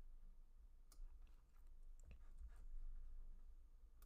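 A few faint, scattered clicks from a computer keyboard and mouse over a low steady hum; otherwise near silence.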